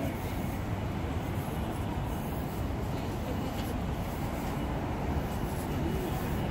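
Steady low rumble of city traffic and street ambience at a busy intersection, with no single sound standing out.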